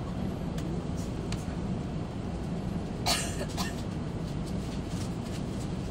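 Steady low hum inside the cabin of an N700A Shinkansen standing at a platform. About three seconds in comes a short, sharp noise, followed by a weaker one half a second later.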